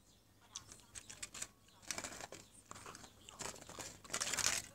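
Close rustling and crinkling handling noise, with a run of irregular clicks and a louder burst of rustle near the end.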